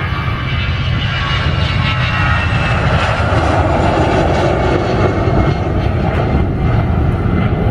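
Twin turbofan engines of an Airbus A320-family airliner at takeoff thrust as it lifts off and climbs away: a loud, steady deep rumble with a high whine above it.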